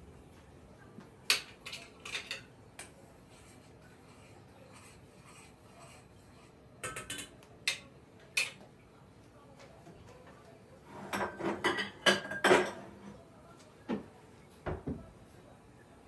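Dishes and cutlery clinking and clattering as they are handled and set down on a kitchen counter and drying mat. The clinks come in short groups, with the busiest clatter about two-thirds of the way through and a couple of duller knocks near the end.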